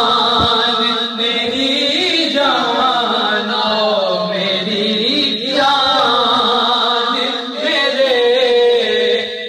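A man reciting a naat, Urdu devotional poetry sung unaccompanied into a microphone, in long held notes that bend and waver, with short breaks for breath. A steady high-pitched whine runs underneath.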